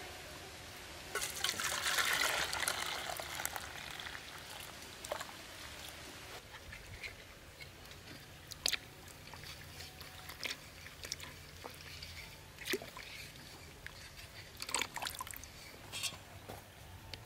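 Liquid poured from a wok into a stainless steel bowl, splashing for about two seconds, followed by scattered light clicks and knocks of cookware.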